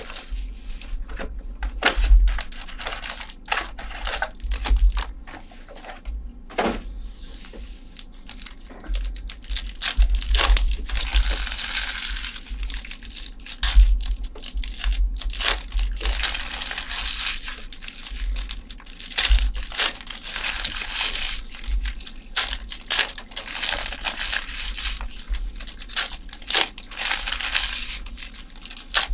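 Plastic wrapping crinkling and tearing as sealed trading-card boxes and packs are ripped open by hand. Many sharp snaps and crackles run throughout, with low bumps from handling.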